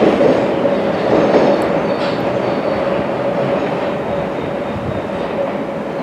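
London Underground battery-electric locomotives and their engineering train rumbling away along the track, with one steady tone held through the noise. It slowly fades as the train recedes.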